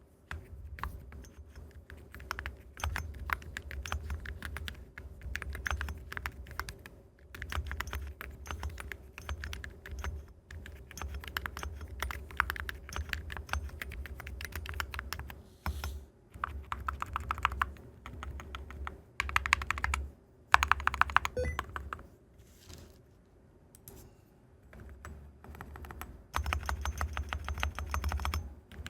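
Typing on a Keychron Q3 HE keyboard fitted with stainless steel keycaps: fast runs of sharp key clicks broken by short pauses, with a longer lull about three quarters of the way through.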